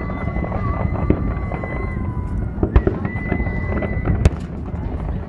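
Fireworks display: a continuous rumble of bursting shells with many sharp bangs and crackles, the loudest about three and four seconds in. A long, steady, high whistle sounds over it for the first two seconds and again briefly a little after the three-second mark.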